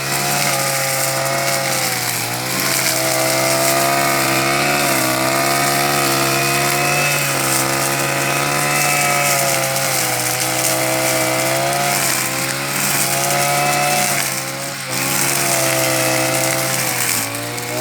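Husqvarna 143R-II two-stroke brushcutter running at high revs with a nylon trimmer-line head, cutting grass; its pitch wavers up and down as the line meets the grass, with a few short drops in speed, one about two-thirds through and one near the end.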